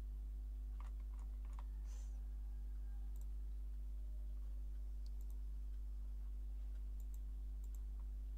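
Steady low electrical hum, with a few faint clicks at the computer: a quick cluster in the first two seconds and several scattered single ones later.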